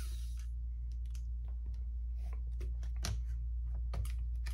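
Electric precision screwdriver motor whirring, cutting off about half a second in. Scattered light clicks and taps of small tools and parts being handled follow, over a steady low hum.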